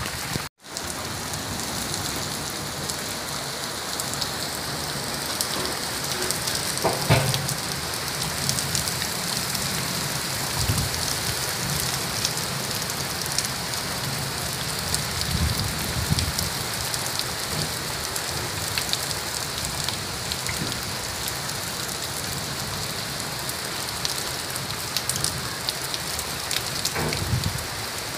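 Heavy rain falling steadily onto a flooded yard and rooftops. There is a brief gap about half a second in, and a few low thumps around seven seconds and near the end.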